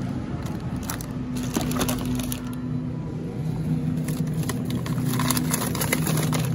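Crinkling and rattling of plastic-wrapped groceries being handled, in bursts about a second in and again around five seconds, over a low steady hum.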